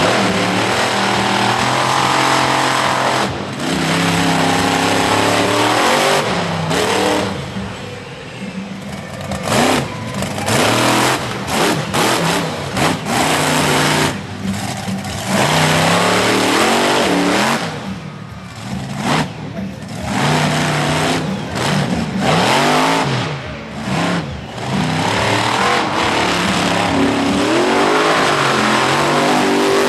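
Bigfoot monster truck's engine revving up and falling back over and over as the truck drives the dirt course, with several brief dips in loudness between runs of throttle.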